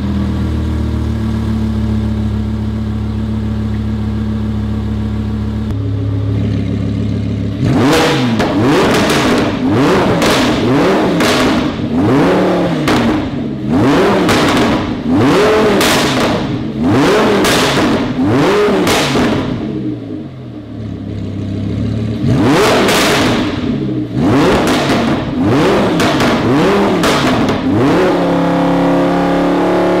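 Lamborghini Huracán LP610-4's 5.2-litre V10 running through a Fi valvetronic cat-back exhaust, stationary. It idles steadily for several seconds, the idle dropping slightly about six seconds in, then is revved in quick blips about once a second, each rising and falling back. After a brief idle it is blipped several more times.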